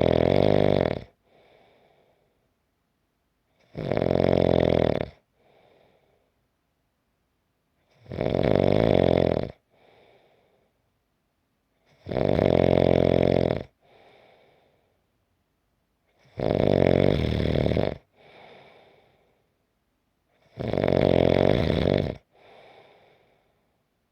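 A person snoring steadily: six loud snores, about four seconds apart and each about a second and a half long, each followed by a much fainter breath.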